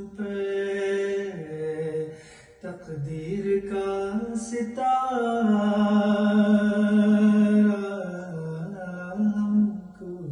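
A man's voice chanting an Urdu noha, a Shia lament, unaccompanied, in long held notes that bend in pitch, with a short break for breath about two and a half seconds in.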